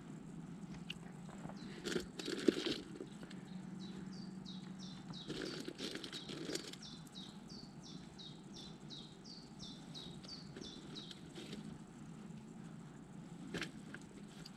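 A bird singing a long run of quick, high falling notes, about three a second, from about four seconds in until about eleven. Short bursts of plastic bag crinkling as food on it is handled, the loudest about two seconds in and another near the end.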